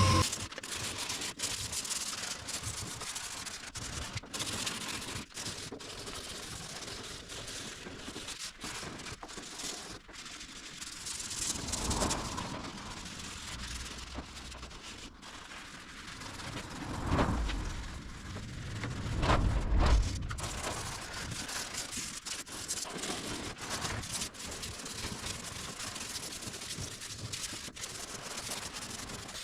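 Sandpaper rubbing over primed car bodywork during hand sanding, a steady scratchy noise with a few louder swells about twelve, seventeen and twenty seconds in.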